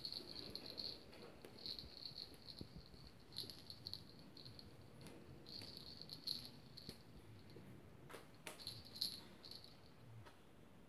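Faint rattling of a hanging play-gym toy as kittens bat at it, coming in about five short spells with a few light clicks.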